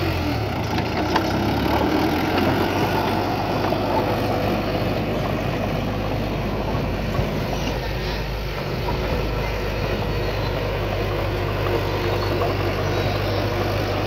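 Heavy diesel engine of earthmoving machinery running steadily, its low note shifting slightly at the start and again about two-thirds of the way through.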